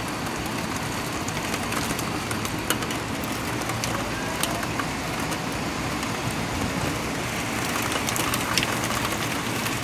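Heavy thunderstorm rain pouring down: a steady, loud hiss with many scattered sharp ticks and crackles.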